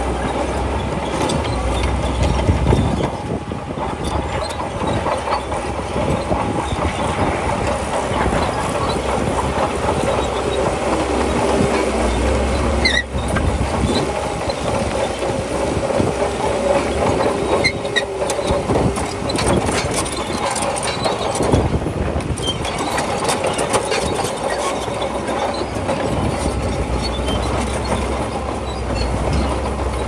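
Shantui crawler bulldozer at work pushing stone: its diesel engine runs steadily under load, with frequent clanks and knocks from the steel tracks and the rock.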